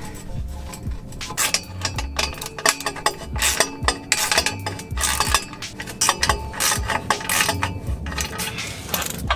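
Socket ratchet clicking in bursts while exhaust bolts are tightened during a catback exhaust install.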